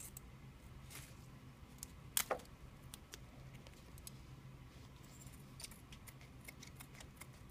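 Scissors snipping through duct-tape arrow fletchings: scattered faint snips and clicks, with one louder snip about two seconds in.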